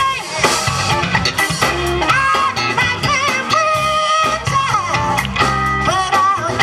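Live soul band: a woman singing lead into a microphone, with wavering held notes, over electric guitar, bass and a drum kit.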